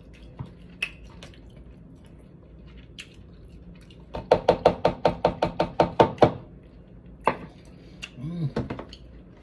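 A plastic bag of sauce-coated food being shaken, giving fast rattling taps of about eight a second for roughly two seconds. A single knock follows, then a brief hummed 'mm'. Small eating clicks come earlier.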